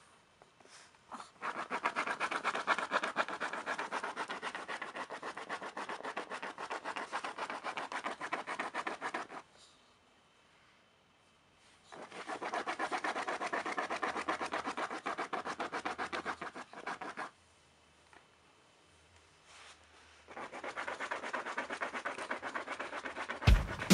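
Small dog, a Chihuahua, digging and pawing fast at a fabric cushion bed: a rapid rasping scratch in three long bouts with short quiet pauses between them.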